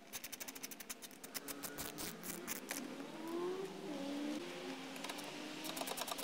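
Ratcheting screwdriver clicking rapidly while undoing motorcycle seat bolts. The clicking stops after about two and a half seconds, a few short squeaks follow as the seat comes off, and the rapid clicking resumes near the end.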